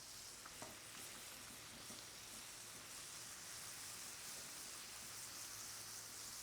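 Chopped ribeye steak and melting cheese sizzling faintly and steadily on a hot grill.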